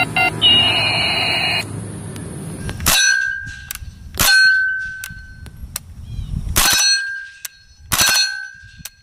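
A falling electronic toy-gun tone, then four single shots from a suppressed MP5-type submachine gun, one to two and a half seconds apart. Each shot is followed by a high metallic ringing ping.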